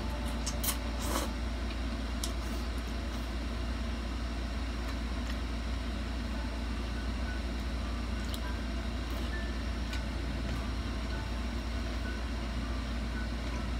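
A steady low machine hum fills the room throughout. In the first second there are a few short wet slurps as noodles are sucked in, and a few faint small clicks come later.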